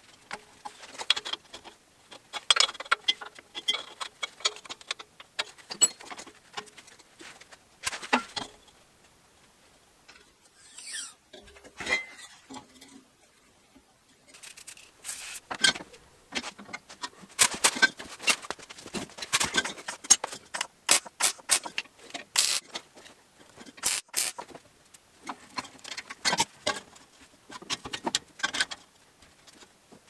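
Scattered clicks, taps and clanks of steel tubing and clamps being handled, set and tightened on a welded steel frame, with a quieter pause of a few seconds about a third of the way through.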